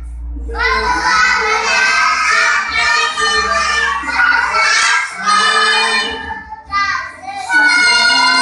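A group of kindergarten children singing a song together, starting about half a second in, with a brief break near the end.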